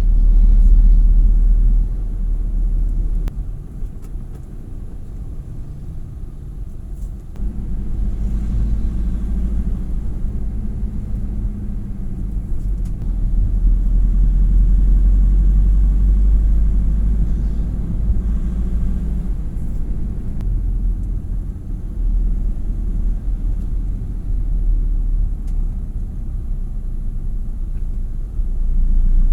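Low rumble of a moving road vehicle, engine and road noise, that eases for a few seconds about four seconds in and then swells again.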